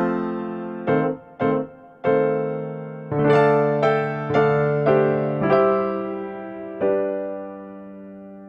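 Background music played on an electric piano: single notes and chords struck one after another and left to decay, with the last chord ringing out and fading near the end.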